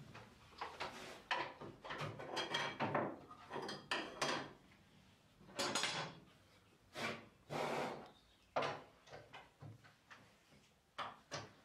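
Short, irregular scraping and rubbing strokes on wood, a dozen or so with pauses between them.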